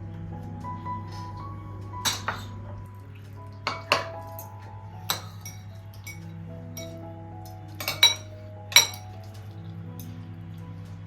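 Kitchenware clinking: dishes and utensils knocking together in several short clusters of sharp clinks, the loudest near the end, over soft background music.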